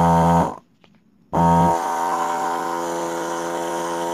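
A 12 V, 100 W diaphragm water pump driven by a 775 DC motor, running dry with a steady buzzing hum. It cuts out abruptly about half a second in and starts again just under a second later, then runs on a little quieter.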